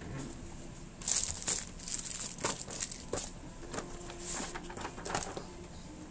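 Packaging being handled: the plastic wrap of table tennis rubber sheets and a cardboard blade box crinkle and rustle as they are moved, picked up and the box lid lifted off. The sound comes in several short bursts with a few light knocks.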